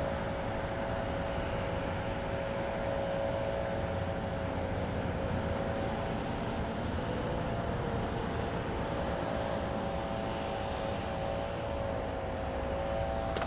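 A distant engine drones steadily at an even pitch, fading a little midway and then coming back.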